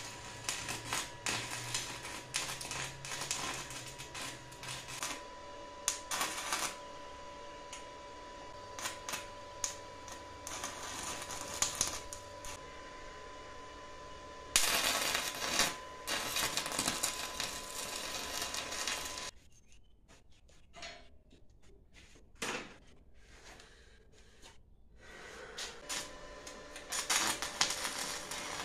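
Electric arc welding on steel: crackling, sizzling weld runs of a few seconds each, stopping and starting with short pauses between, as grille rods are welded to a frame.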